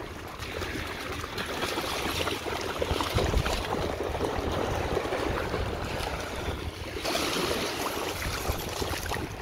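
Shallow sea water washing and lapping at the shoreline and dogs splashing through it, over a low wind rumble on the microphone. About seven seconds in the wash turns hissier as small waves break close by.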